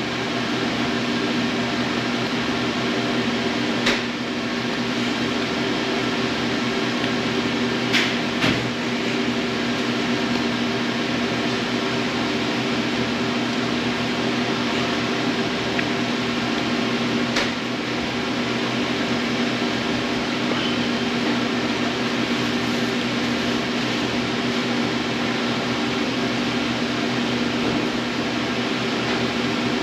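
Steady machine hum, like a running fan or cooling unit, with a low even drone. A few short clicks stand out over it.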